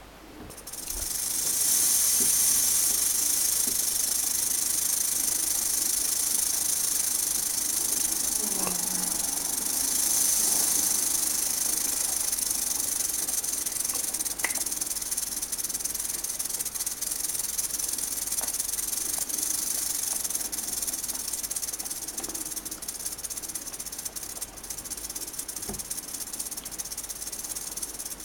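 Western diamondback rattlesnake's rattle buzzing continuously, starting about a second in and easing a little near the end.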